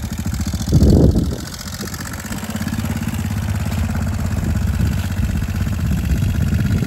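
Quad ATV engine running, with a brief louder rev about a second in, then a steady engine note as it rolls slowly down into shallow creek water.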